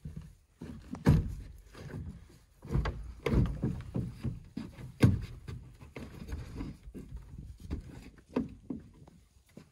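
Hammer striking wooden wall studs in uneven knocks and thuds, some hard and some lighter, as the framing is nailed and knocked into place.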